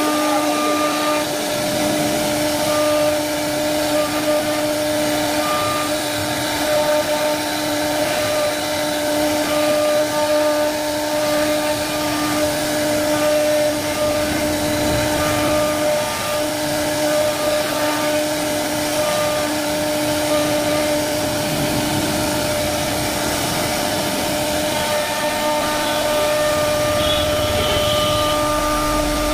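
CNC router spindle whining steadily as its bit cuts grooves into an MDF board, over the hiss of the cut.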